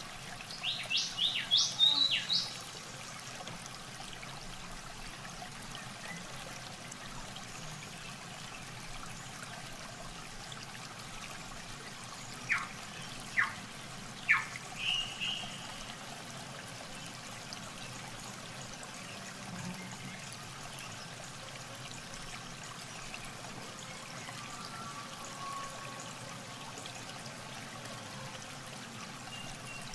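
Shallow muddy water trickling and sloshing steadily as a fishing net is worked through it by hand. A quick run of loud high chirps comes in the first two seconds, and three short sharp chirps and a brief call come about halfway through.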